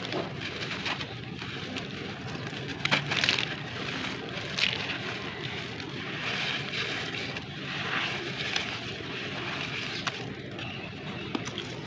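Hands crumbling lumps of sand-cement into a shallow mould of water: gritty crunching and the patter and splash of falling grit, coming in several rushes a second or two apart, over a low steady hum.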